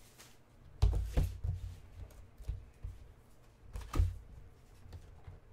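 Foil-wrapped trading-card boxes being handled on a table: a few knocks and thumps, the loudest about a second in and again about four seconds in.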